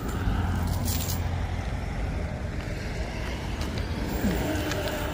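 Low, steady rumble of a road vehicle running close by, with a few faint clicks.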